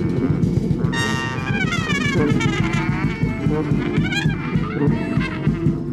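Brass band music: horns play wavering, sliding notes over a dense, steady low accompaniment.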